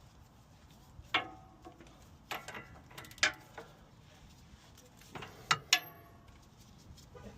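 Sharp metal-on-metal clinks of hand tools against steel steering parts, each with a short ring. They come in small clusters about a second, three seconds and five and a half seconds in.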